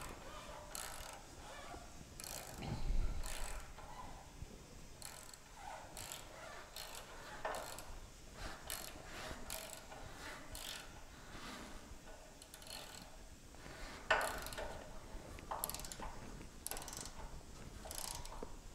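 Hand ratchet wrench clicking in short, irregular runs as bolts are run down into a steel car chassis, with a dull thump about three seconds in and a louder metal click later on.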